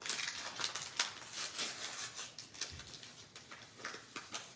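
Instant pudding packaging being torn open by hand: a run of quick paper and plastic crinkles and crackles that die away near the end.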